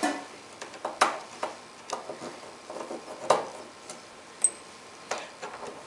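Sharp clicks and light metallic taps, about eight at irregular intervals, from screws being worked out of a rack mixer's sheet-metal bottom cover by hand and screwdriver.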